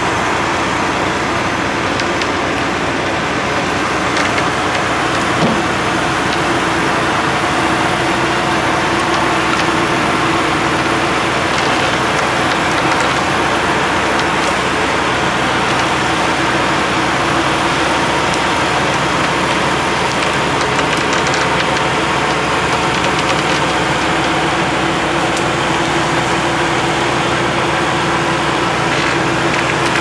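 Heavy diesel equipment engines running steadily, a constant drone that holds without changing.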